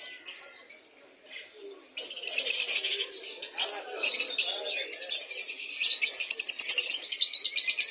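Many small caged songbirds chirping and twittering at once. A few chirps at first, then a dense stream of rapid high chirps sets in about two seconds in and keeps up.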